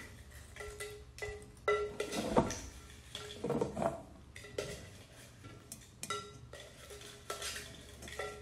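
A hand rummaging through lots in a metal pail: scattered knocks and clinks against the metal, several of them ringing briefly.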